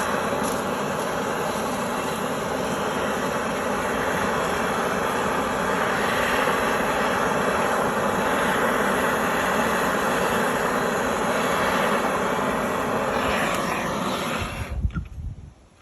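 Plumber's TurboTorch flame running with a steady roar while heating a copper pipe fitting for soldering. It is shut off near the end with a brief low pop, and the sound drops away suddenly.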